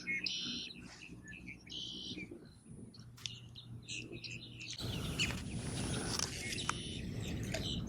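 Small birds chirping repeatedly in short high calls, over a low steady hum that fades about three seconds in; about five seconds in, a rushing noise comes up under the chirps.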